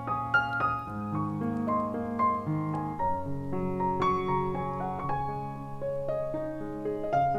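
Background piano music: a melody of single notes over held bass notes.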